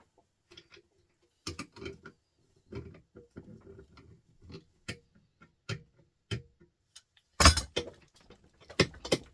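Small metal parts clicking and knocking as a printer motor is worked apart by hand, in irregular taps. There is a louder clatter about seven and a half seconds in.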